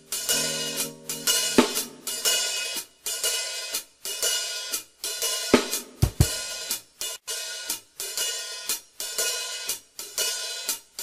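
Drum kit being played: cymbal and hi-hat crashes with snare and tom hits in a steady rhythm, about two strokes a second, the cymbals ringing between strokes.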